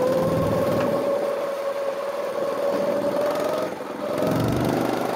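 Go-kart's small engine running under throttle, its pitch climbing steadily as the kart speeds up. It eases off briefly near the end, then picks up again.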